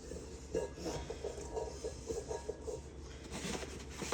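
Cookie dough being handled and worked on a work surface: a run of soft rubs and light taps, then a short scrape near the end.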